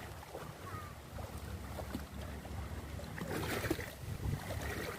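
Wind buffeting the microphone outdoors as a steady low rumble, with a short burst of hissy, splashy noise about three and a half seconds in.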